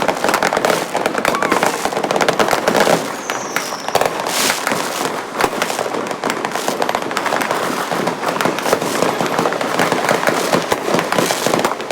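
New Year fireworks and firecrackers going off, a dense, continuous crackle of many rapid bangs, with a short whistle about three seconds in and a louder bang just after.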